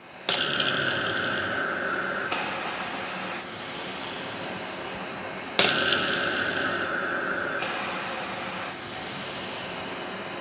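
Cough Assist mechanical insufflator-exsufflator running its breathing cycles: a rush of air starts suddenly and loud about every five seconds, holds for about two seconds, then steps down to a quieter flow before the next cycle begins.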